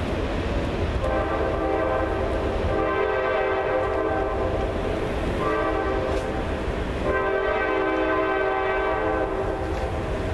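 A horn sounding two long, steady blasts of a held chord, each about four seconds, over a constant low rumble.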